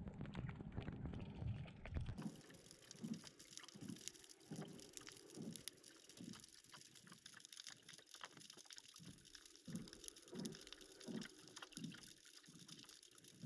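Faint water lapping and splashing in soft, regular pulses. A low rumble, likely wind on the microphone, cuts off suddenly about two seconds in.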